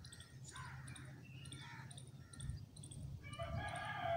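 Faint chirping of an insect, a short high chirp about twice a second, over a low steady hum. A bird starts calling near the end.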